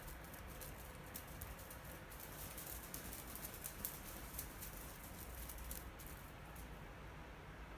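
Faint, quick, light clicking and rattling of a cat toy as a tabby cat bats and paws at it, densest in the first few seconds, then thinning out.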